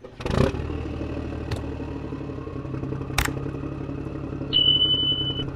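A steady low motor hum, with a few sharp clicks and a brief steady high tone near the end.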